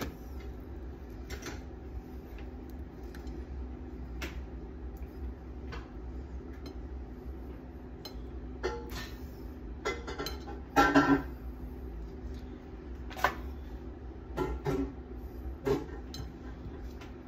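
Scattered light knocks and clinks of a knife and utensils against a plate during sandwich-wrap assembly, the loudest cluster about eleven seconds in, over a steady low hum.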